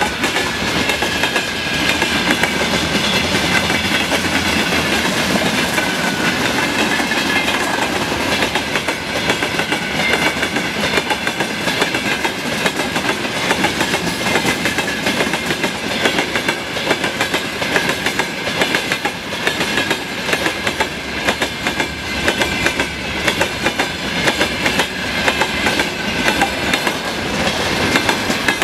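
Freight train rolling past, its wagon wheels clicking rapidly over the rail joints, with a steady high-pitched squeal over the rumble.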